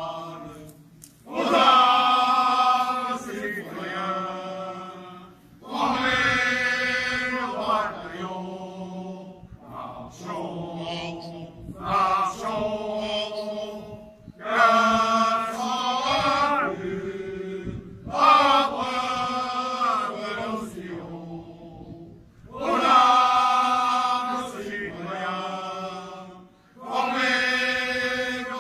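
A choir singing a slow ceremonial song in long phrases of a few seconds each, with short breaks between phrases.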